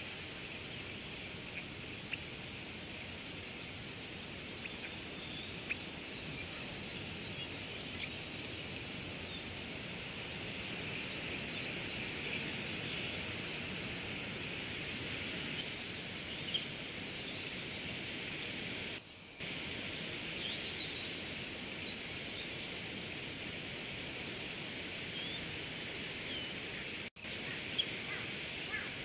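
Outdoor bush ambience: a steady high-pitched insect drone over a wide hiss of background noise, with faint scattered bird chirps. The sound cuts out briefly twice, once near the middle and once sharply near the end.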